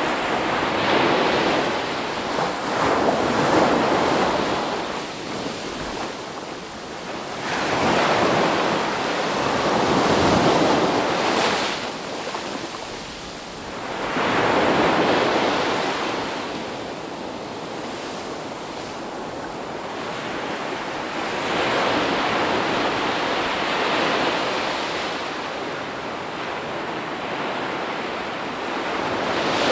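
Ocean surf: waves breaking and washing back in slow swells, each surge rising to a rushing peak and falling away every few seconds.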